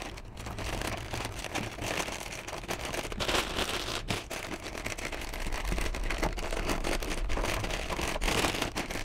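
Clear polythene dust bag crinkling and rustling as it is pushed down into a vacuum cleaner's plastic container and folded over the rim, a steady run of small crackles.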